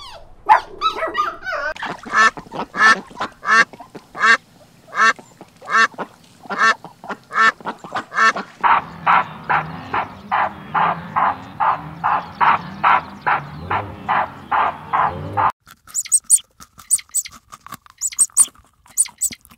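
A long string of loud, short animal calls, about two a second at first. After about eight seconds they become a faster, steadier run of about three a second. They stop suddenly at about fifteen and a half seconds, and quick high chirps follow.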